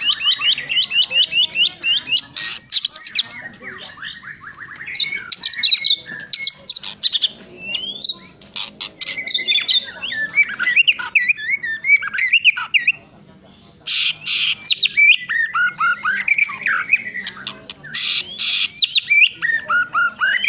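White-rumped shama (murai batu) singing continuously in full voice: a fast run of repeated notes at the start, loud whistled phrases, and bouts of sharp clicking notes, with a brief pause about two-thirds of the way through.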